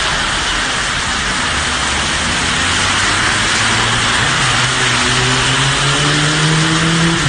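Heavy rain hissing on the road and pavement, with cars swishing past on the wet, flooded road. From about four seconds in, a low hum rises in steps.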